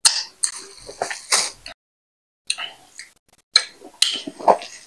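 Close-up wet chewing and mouth sounds of someone eating fufu with soup by hand, in short separate bursts with gaps between them. Near the end a rustle comes from the plastic wrap around the fufu.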